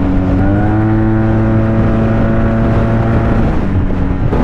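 Yamaha maxi-scooter engine running at motorway speed, a steady drone whose pitch rises a little about half a second in and then holds.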